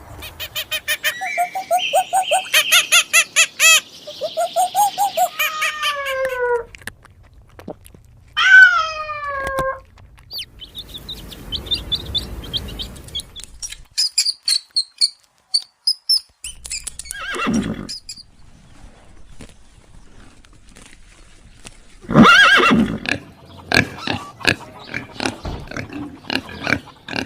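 A series of different animal calls one after another: pitched calls with falling glides, then high chirping, then a busy run of calls near the end.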